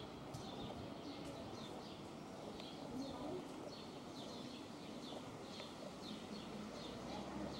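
Small birds chirping: many short, high chirps repeating throughout, over a steady low background rumble.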